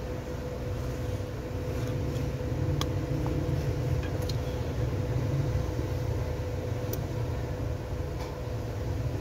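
Steady low machine hum carrying a thin steady tone, with a few sharp plastic clicks about three, four and seven seconds in as a phone's glued back cover is pried loose.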